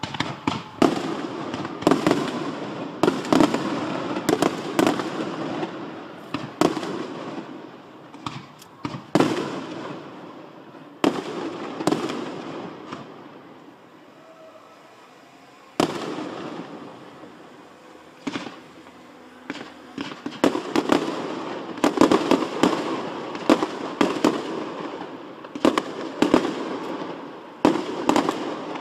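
Fireworks display: aerial shells launching and bursting, many sharp bangs at irregular spacing with reverberating noise between them. The bangs thin out to a lull about halfway through, then come thick and fast again toward the end.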